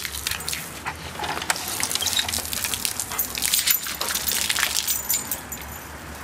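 Water from a garden hose spraying and splattering in irregular bursts, with quick clicks and splashes.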